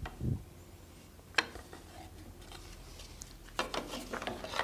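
Wooden knocks and clatter of a thin wooden batten being set against the wooden frames of a boat hull: one sharp knock about a second and a half in, then a quick run of knocks near the end.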